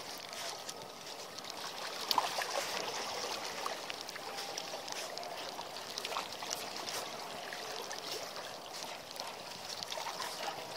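Seawater lapping and trickling against the rocks of a seawall, a steady wash with scattered small clicks; one click about two seconds in is louder.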